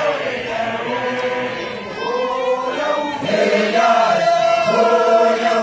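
A group of Basotho initiates (makoloane) chanting a song together in long held phrases, with a short break about three seconds in before the next phrase begins.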